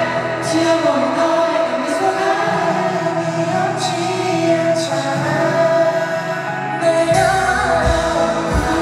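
Live band music: a man singing over acoustic guitar and band. Low beats come in about seven seconds in.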